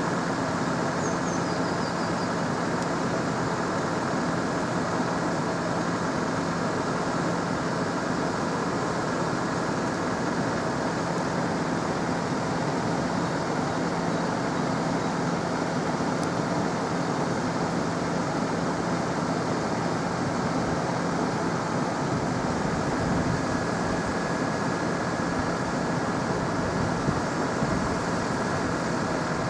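Level crossing warning alarm sounding continuously while the red wig-wag lights flash and the barriers are down, an unbroken electronic tone with no pauses.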